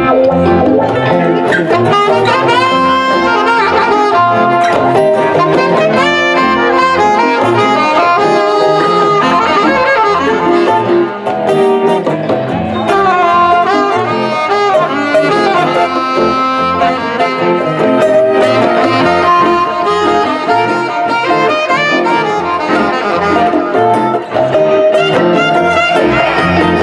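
Live band playing a song, with a saxophone carrying the melody over electric and acoustic guitars, bass guitar and drums.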